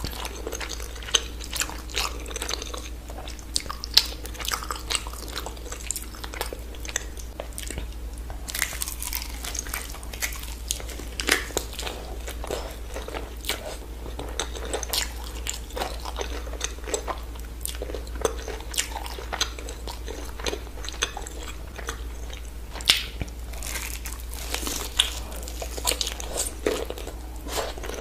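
Close-miked biting and chewing of sauce-glazed fried chicken, with irregular sharp crunches of the crisp coating. The two loudest crunches come about 4 seconds in and near 23 seconds in.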